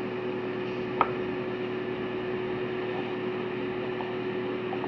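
Steady background hum and hiss with one steady tone held throughout, and a single small click about a second in.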